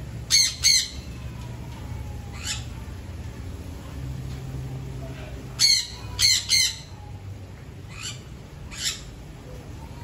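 Cockatoo giving short, harsh squawks: a quick pair just after the start, three more a little past halfway, and fainter calls in between and near the end.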